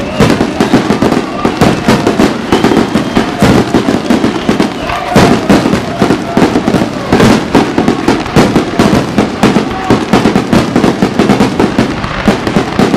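Aerial fireworks display: shells bursting in rapid, overlapping succession, a dense unbroken stream of loud bangs.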